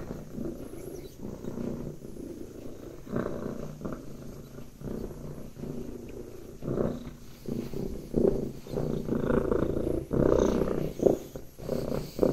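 Domestic cat purring close up, a steady low rumble that swells and fades every second or so and grows louder in the second half.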